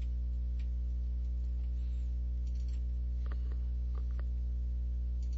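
Steady low electrical mains hum with evenly spaced overtones, with a few faint short clicks around the middle.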